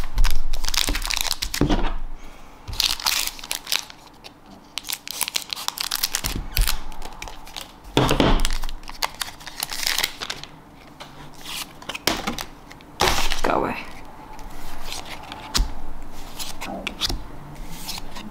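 Paper trading cards being slid off a stack and flipped through by hand: a run of irregular brisk swishes and light card snaps, with a few louder rustles.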